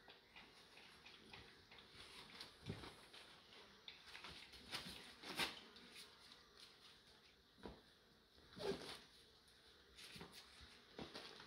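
Faint, intermittent scuffling and light taps of American Staffy x American Bulldog cross puppies moving about on a concrete floor and their bedding, with a few louder short sounds about five and nine seconds in.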